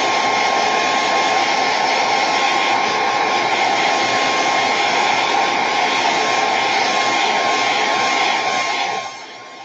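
Hand-held hair dryer running steadily on high, a loud rush of air with a steady motor whine, drying freshly applied chalk paste on a transfer. It drops to a much quieter level about nine seconds in.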